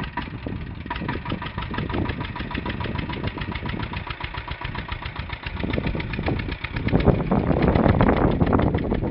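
Diesel Royal Enfield Bullet's single-cylinder engine running under way with a steady, rapid knocking beat. The sound grows louder and rougher about seven seconds in as the bike pulls away.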